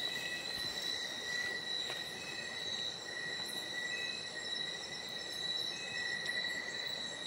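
Night insects chirring in a steady, unbroken high-pitched drone of two tones.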